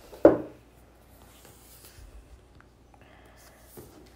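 A sharp thump about a quarter second in, then faint rustling and scraping of the cardboard iPad Pro box as its lid is worked off by hand.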